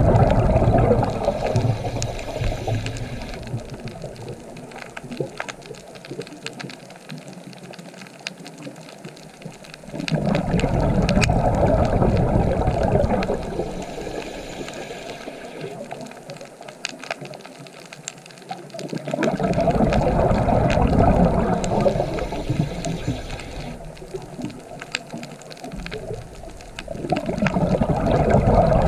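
Rushing water that swells and ebbs, rising to a loud surge about every nine seconds and falling back between, with faint scattered ticks.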